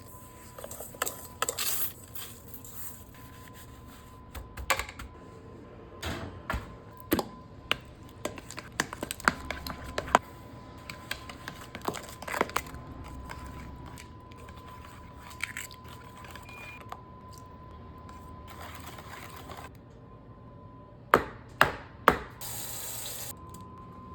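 Kitchen preparation sounds: irregular clicks, clinks and knocks of utensils and dishes being handled, with a brief hiss near the end, over a faint steady high hum.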